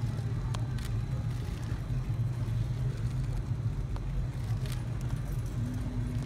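Steady low background rumble of an outdoor paddock, with a few faint clicks and taps scattered through it and a short low hum near the end.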